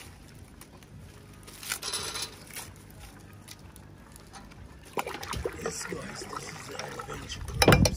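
Water sloshing and trickling as things are moved about in it, with scattered clicks and knocks. It gets busier about five seconds in, and there is a loud knock near the end.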